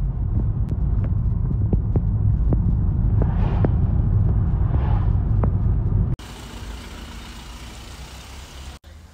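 Car cabin noise while driving in heavy rain: a steady low road rumble with scattered sharp ticks of rain on the windscreen. About six seconds in it cuts to a much quieter, even hiss.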